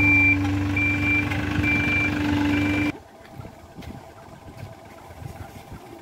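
Reversing alarm on a Dynapac tandem asphalt roller, beeping about once a second over the roller's steady diesel engine hum. It cuts off abruptly about halfway through, leaving a much quieter low rumble.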